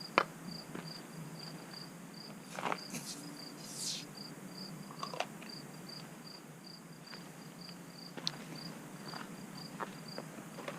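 An insect, likely a cricket, chirping steadily in a regular series of short high chirps, about three a second, with a few light clicks and knocks of handling over it.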